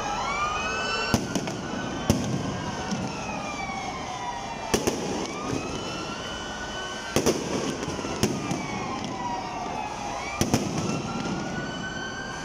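Aerial fireworks shells bursting in sharp bangs, about six in all, spaced one to three seconds apart over a steady crackle and rumble. Under them runs a continuous whistling tone that slowly rises and falls.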